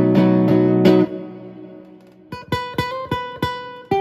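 Electro-acoustic guitar played through a CoolMusic BP-80 combo amplifier. Quick repeated plucked chords for about a second, a chord left ringing and fading away, then a short run of single plucked notes.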